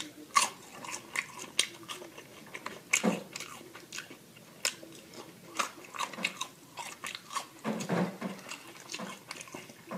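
A person chewing food, with irregular crisp crunches and wet mouth clicks; fuller, louder chews come about three seconds in and again around eight seconds.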